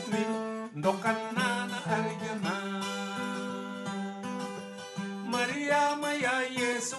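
Music: a song with a voice singing over plucked string accompaniment, with one long held note in the middle.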